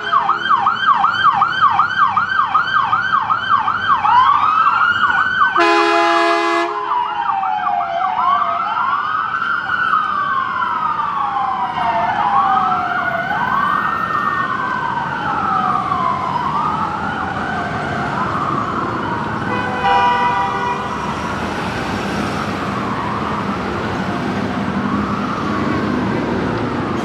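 Emergency-vehicle electronic sirens on a fast yelp, then a short blast of Buell air horns about six seconds in. After the blast the sirens switch to a slower wail, with two sirens overlapping. Another short, fainter horn blast comes about twenty seconds in, and the sirens grow a little fainter toward the end.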